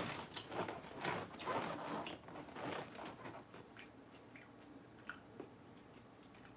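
Close-up chewing and crunching of a mouthful of lettuce salad, with irregular crisp crunches. The crunching is densest for the first three seconds, then thins to a few faint clicks.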